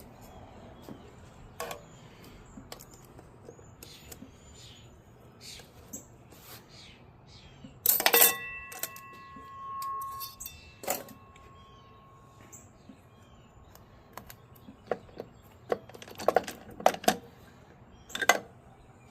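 Steel planetary gear parts of a Chrysler 727 automatic transmission clinking as they are handled and set down. About eight seconds in, one part is knocked and rings with a few clear tones that die away over about four seconds. A quick run of clinks and clanks comes near the end.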